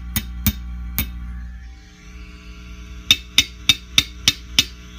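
A chopstick taps a tube amp's preamp tubes three times over the amp's steady mains hum, testing them for microphonics. The hum then drops away. About three seconds in, a faster, regular run of about seven sharp knocks follows, roughly three a second.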